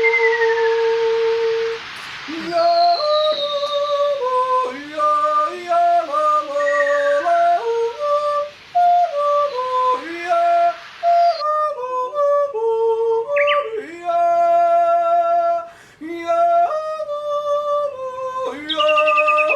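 A voice yodeling a tune, its pitch flipping back and forth between a low chest note and a high head note in quick steps. There are a few falling whistled chirps near the start and middle. A hiss behind it stops about halfway through.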